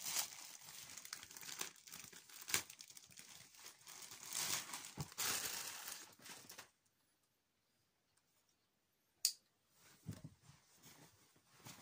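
Plastic postal mailer and its wrapping being torn open and crumpled for the first six seconds or so. Then it goes quiet, with a single sharp click about nine seconds in and soft handling sounds near the end.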